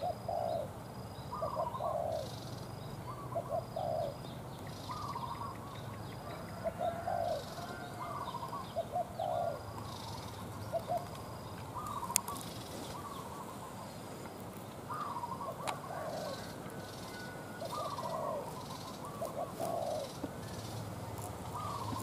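Spotted doves cooing, one short phrase after another every second or two. A faint, high, evenly repeated peep sounds through the first half.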